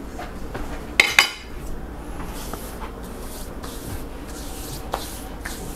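Hands scraping sticky pastry dough off the sides of a stainless steel stand-mixer bowl and pulling it out. Two quick metallic clinks sound against the bowl about a second in, followed by soft rubbing and scraping.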